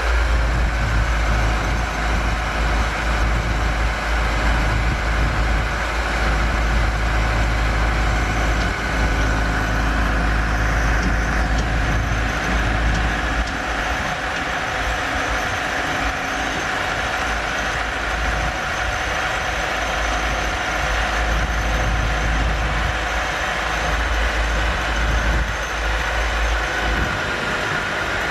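Massey Ferguson 390 tractor's diesel engine running steadily, its deep rumble easing somewhat about halfway through.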